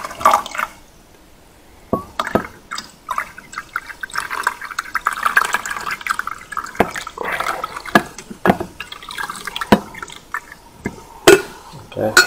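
Water poured from a glass carafe into a coffee maker's water reservoir, a running, filling sound that is strongest around the middle, with several sharp knocks from the carafe and plastic lid being handled.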